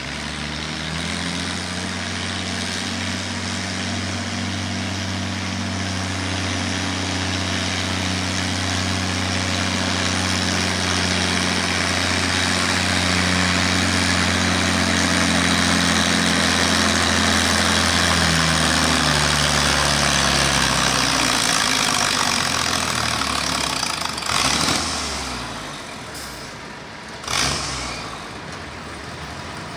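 Oliver 99 tractor engine running hard under load as it pulls a weight sled, a steady note that slowly climbs and grows louder, then dies away about two-thirds of the way through as the pull ends. Two short loud bursts of noise follow near the end.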